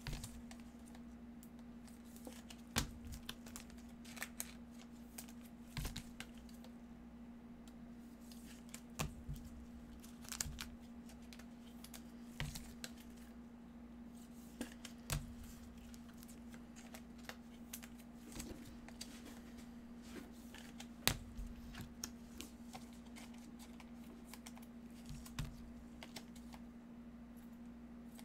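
Scattered light clicks and taps from trading cards and card holders being handled on a desk, over a steady low hum.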